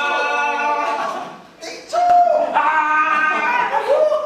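Several young men's voices yelling and screaming in long, held tones, urging on an arm-wrestling bout, with a brief lull about a second and a half in.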